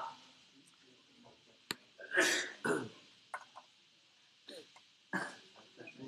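Mostly quiet, broken by one sharp click a little under two seconds in, then a few short wordless vocal noises from a man, about two seconds in and again about five seconds in.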